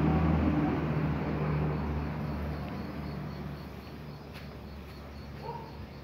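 A low motor rumble, loudest at the start and fading away over the first few seconds. Faint insect chirping runs behind it at about four chirps a second.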